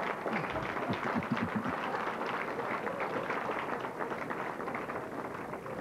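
Audience applauding and laughing after a punchline, the clapping dying down near the end.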